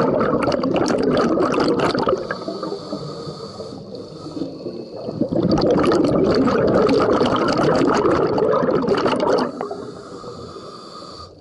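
Scuba diver breathing through a regulator underwater: two long rushes of exhaled bubbles, one at the start and one from about five to nine and a half seconds in, with quieter stretches of inhaling between.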